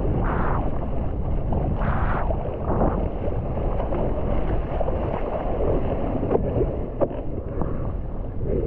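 Wind buffeting the microphone in a steady low rumble, with water splashing in surges, strongest in the first three seconds. Two short sharp knocks come about two-thirds of the way through.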